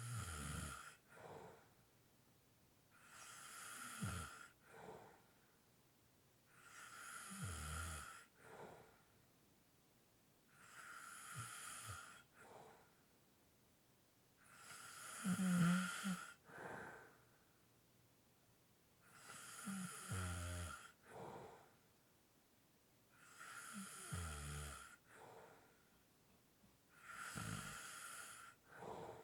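A person snoring lightly in sleep, in a slow, even rhythm of about one breath every four seconds. Each cycle is a longer noisy snore ending in a low rattle, followed by a shorter, quieter breath, and the loudest snore comes about halfway through.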